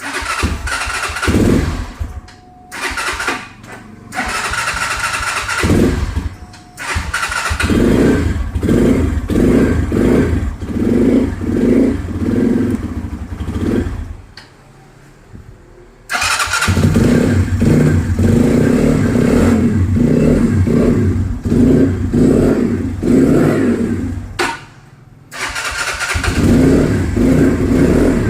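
Euro Viperman 150 EFI motorcycle engine starting and running through a series of quick, repeated throttle blips on its first start. The engine sound stops for a moment and starts again a few times, most plainly about fourteen and twenty-four seconds in.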